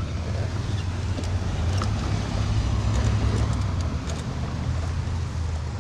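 Steady low engine rumble with a faint hiss and a few light clicks.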